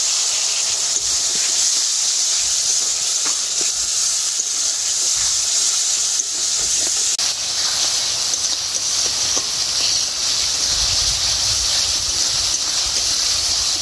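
Onion-tomato spice masala sizzling in hot oil in an aluminium kadai as it is stir-fried down with a spatula, with a little water added so the spices don't burn. A steady hiss with a few faint scrapes of the spatula.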